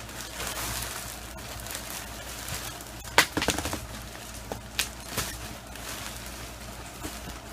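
Plastic wrapping on a compressed foam mattress crinkling and tearing as it is pulled open, with a sharp crack about three seconds in and a few more snaps later.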